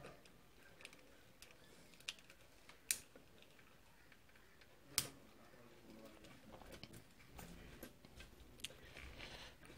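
Faint, scattered clicks and taps of small electronic parts and a hand tool being handled at a workbench, with two sharper clicks about three and five seconds in.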